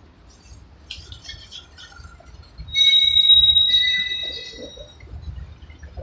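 Freight cars' steel wheels rolling past with a low rumble. A little before halfway they let out a loud, steady high-pitched squeal of several tones at once, lasting about two seconds, with shorter squeaks before and after it.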